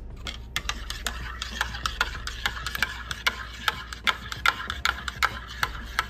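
Metal spoon stirring hot cocoa in a ceramic mug, clinking against the inside of the mug a few times a second.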